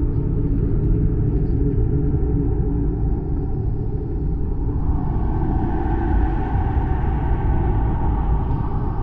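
Designed horror sound effect: a deep, steady rumbling drone. About five seconds in, a brighter, hissier layer swells in on top of it.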